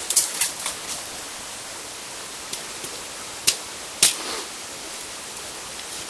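A machete blade striking a bamboo stalk as it is split: a quick run of sharp knocks at the start, then two louder cracks about three and a half and four seconds in. A steady rush of stream water runs underneath.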